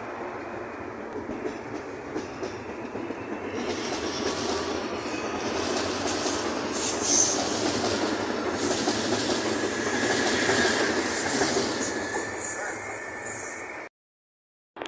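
CPTM electric commuter train running past on the adjacent track: a steady rush of wheels on rail that grows louder about four seconds in, with a faint squeal from the wheels partway through. It cuts off abruptly near the end.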